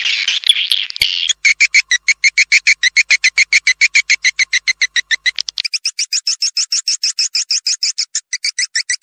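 Swiftlet lure call: dense overlapping twittering, then from about a second in a fast, even run of short chirps at roughly eight a second, which turns higher-pitched a little past the middle.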